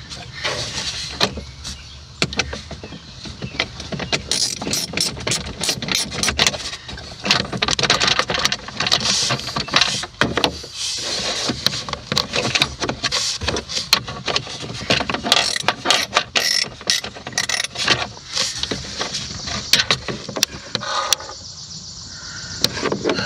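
Irregular clicks, knocks and rattles of hands working plastic dash trim and wiring connectors, dense through the middle and thinning out near the end.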